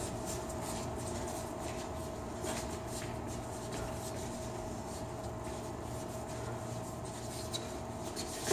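Boxers' sneakers shuffling and scuffing on a hard ring floor during sparring, with a few faint taps, over a steady hum.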